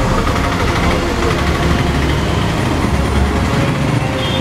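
Street traffic: motorbike and auto-rickshaw engines running close by, a steady low rumble.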